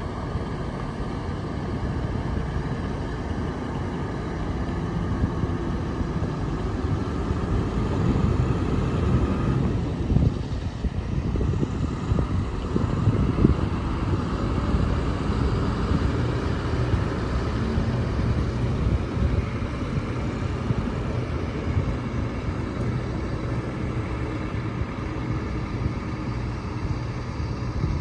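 Intercity coach bus engine running as the bus moves off, a steady hum that grows louder about eight to fourteen seconds in and then holds even.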